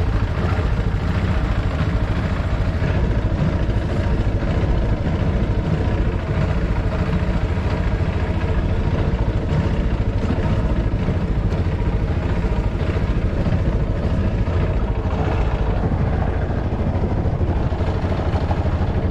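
Boat motor running steadily as the wooden boat moves under way, with water rushing and splashing against the hull.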